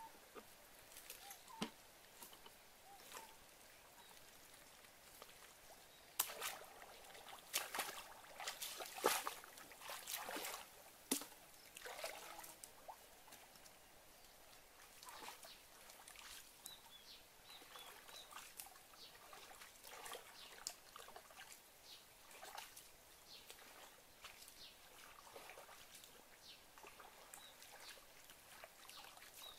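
Shallow, muddy canal water sloshing and splashing in irregular bursts as a person wades and gropes through it by hand, busiest about six to twelve seconds in, then sparser.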